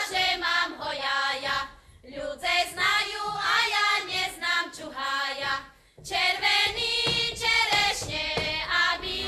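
A group of women's voices singing a folk song in sung phrases, with two short breaks about two and six seconds in.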